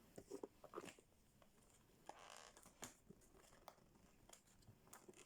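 Faint handling of packaging: scattered small clicks and rustles, with a soft scrape about two seconds in.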